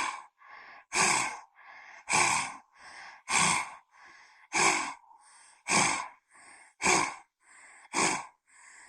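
A person doing lion's breath (simhasana): forceful open-mouthed 'haa' exhalations from the throat with the tongue stuck out, about one a second, each followed by a short, quieter inhale.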